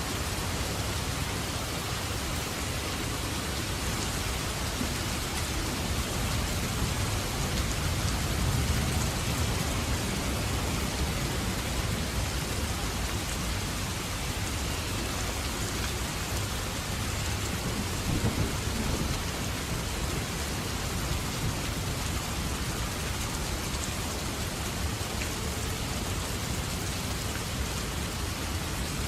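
Heavy rain falling steadily in a thunderstorm, with low rolls of thunder swelling and fading about a third of the way in and again about two-thirds through.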